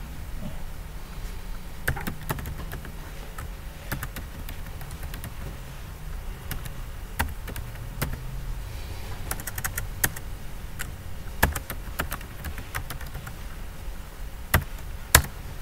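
Computer keyboard keystrokes: scattered, irregular key clicks as a command is typed, with a quicker run of keys about nine seconds in, over a low steady hum.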